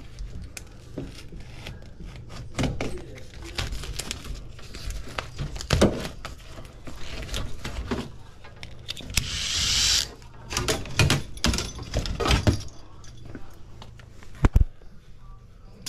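Metal hand tools clicking, clinking and knocking during work at an air handler's evaporator coil and refrigerant line, with a short rushing hiss about nine seconds in and a sharp knock near the end.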